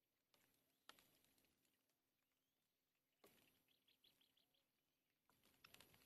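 Very faint rustling and sharp clicks of twigs in a stick nest, with a quick run of about seven short high chirps from a bird a little past halfway.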